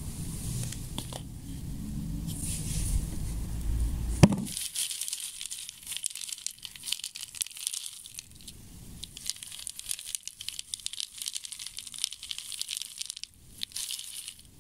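A hand stirs and rattles a plastic bucket of hard, dry rice puffs coated in black powder, making a dense, dry crackling and clicking of pellets knocking together. For about the first four seconds there is a low rumble, which ends in a sharp knock.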